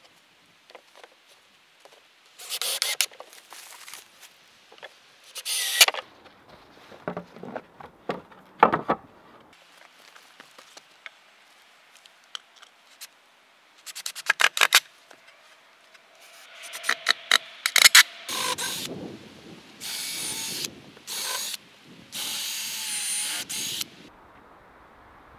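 A power drill driving screws into wood in several short bursts, with knocks and handling of boards between them. There are rapid clatters about halfway through and a few seconds of steady drilling near the end.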